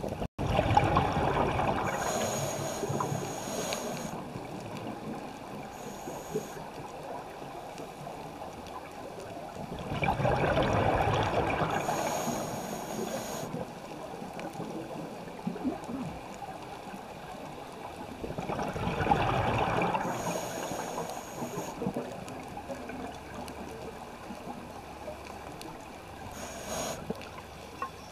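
Scuba breathing through a regulator heard underwater: a gurgling rush of exhaled bubbles about every nine seconds, four times, each followed by a short high hiss of the regulator, over a steady underwater wash.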